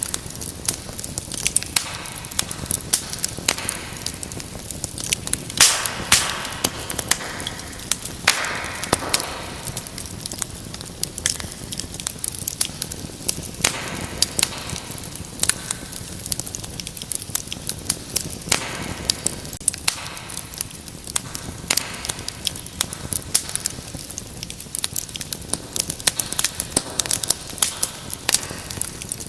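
Wood fire crackling, with dense, irregular sharp pops and snaps over a steady hiss of burning, swelling now and then into a louder hiss.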